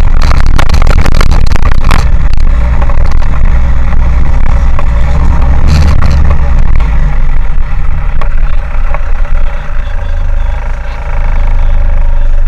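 Car driving on a dirt track, its engine running under heavy low rumble and wind on a body-mounted camera, loud enough to near overload. Scattered crackling early on, and a steadier engine note from about two-thirds of the way through.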